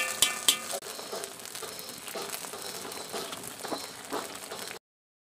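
Food sizzling in oil in a wok. In the first second come a few sharp metallic clicks and a short ringing tone. The sound cuts off suddenly near the end.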